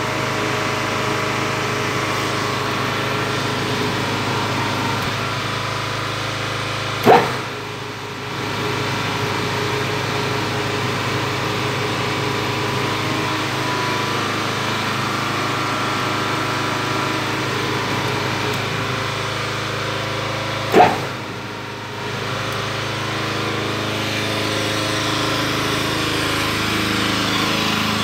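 A motor running steadily with a low, even hum that grows slightly louder near the end. Two brief sharp knocks come about seven seconds in and again about twenty-one seconds in, each followed by a second or so of quieter running.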